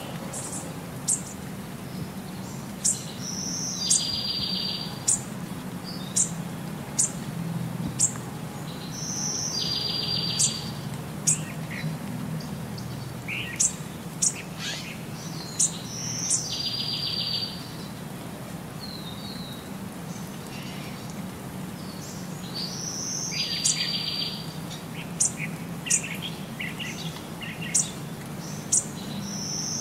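Birdsong in a repeating pattern: quick, very high chirps throughout, and a buzzy trill about a second long that comes back about every six and a half seconds, over a low steady hum.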